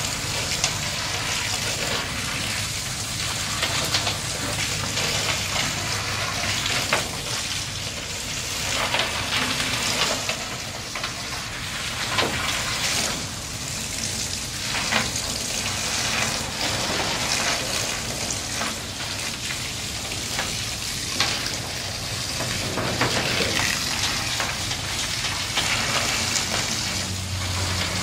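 Heavy rain falling steadily on a plastic tarp, with a stream of water pouring and splashing onto it and sharper splats now and then.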